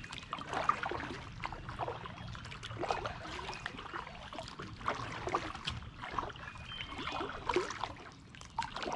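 Kayak paddle working the water: the blade dips and splashes, and water trickles and drips off it, in a run of small, irregular splashes.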